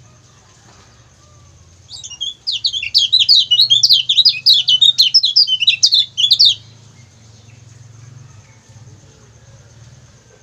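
Kecial kuning white-eye giving a rapid burst of high, chattering 'ciak ciak' chirps, starting about two seconds in and lasting about five seconds. Under it runs a low, steady hum.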